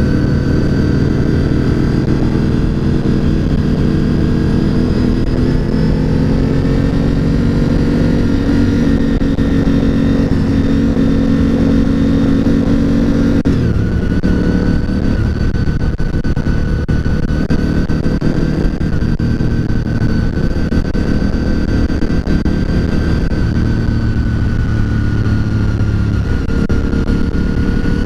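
Honda RC51's V-twin engine running steadily under way on a motorcycle ride, with a rush of wind noise. The engine note changes and settles at a different pitch about halfway through.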